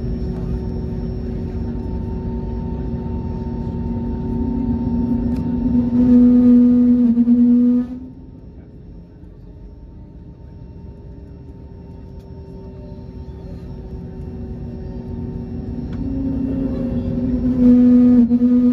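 Airliner cabin noise while taxiing: a steady low rumble and hum, with a droning tone that swells louder twice, around six seconds in and again near the end, the first time cutting off suddenly.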